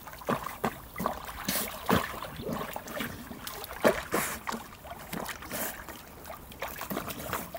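Lake water splashing and slapping in irregular small bursts as a Lagotto Romagnolo swims alongside a wooden pier.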